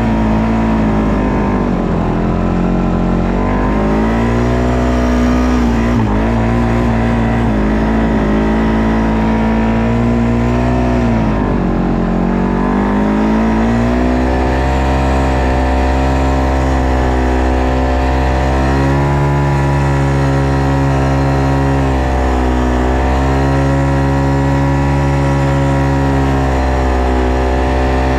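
ATV engine running under way, its pitch dropping and picking back up twice as the throttle eases off and opens again, with smaller dips later.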